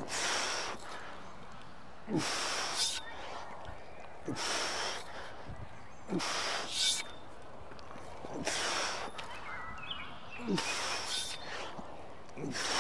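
A man breathing hard from exertion during steel mace 360 twist-squat reps: a forceful, hissing breath about every two seconds, each with a short grunt.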